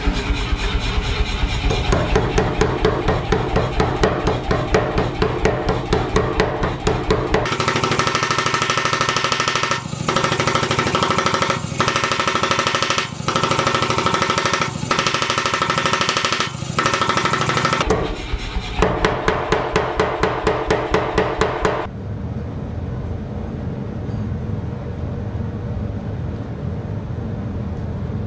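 Mechanical power hammer pounding a red-hot steel reinforcement bar with a fast run of repeated blows. The hammering stops about 22 seconds in, leaving a steadier, quieter sound.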